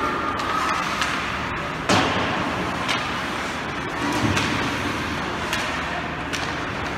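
Ice hockey game in a rink: a steady crowd and rink hubbub with sharp cracks of sticks and puck. The loudest crack comes about two seconds in, with others a second later and again about five and a half seconds in.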